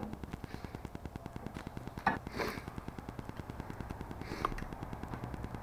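Air compressor for a pneumatic brad nailer running, with a rapid, even pulsing. A few short clicks from the nailer and air hose being handled come at about 2 and 4.5 seconds.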